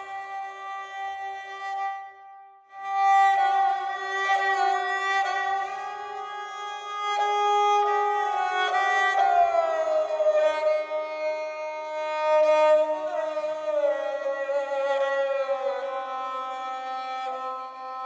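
A bowed-string melodic phrase played from Sonuscore's Ethnic String Phrases sample library for Kontakt. Long held notes with a fiddle-like tone break off briefly about two seconds in, then resume, with notes sliding down in pitch about ten seconds in.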